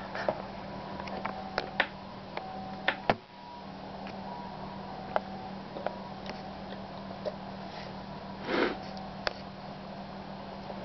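Steady low hum of a quiet room with a few faint clicks, and a short sniff from a resting Alaskan Malamute about eight and a half seconds in.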